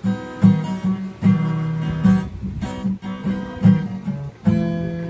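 Acoustic guitar strummed: a run of chords, each struck sharply and left to ring, about eight strums, the last chord ringing and fading near the end.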